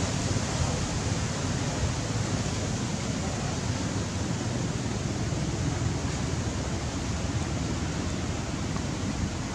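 Steady outdoor rushing noise with no distinct events, heaviest in the low range, like wind on the microphone.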